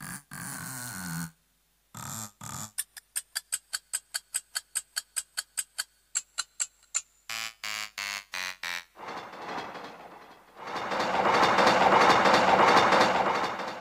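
Casio CT-X700 keyboard's built-in sound-effect tones played one after another: a short pitched tone, a fast run of clicks at about four a second, a few ringing alarm-like beeps, then a long noisy swell like a passing train that rises and fades.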